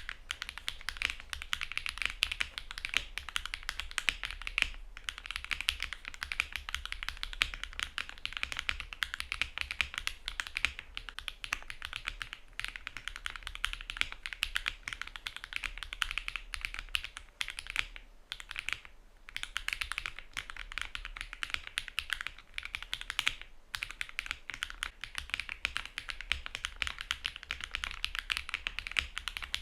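Continuous typing on a mechanical keyboard fitted with stock, factory-lubed HMX Gravel switches in an aluminium plate, with GMK Dandy R2 keycaps and no foam: a steady run of keystroke clacks, with brief pauses about 5, 18 and 23 seconds in.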